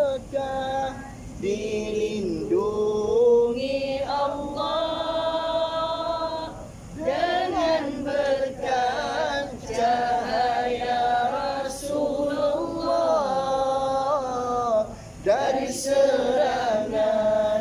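A man chanting an unaccompanied Islamic devotional selawat in praise of the Prophet Muhammad. He draws out long held notes that waver and bend in pitch, breaking briefly about seven and fifteen seconds in.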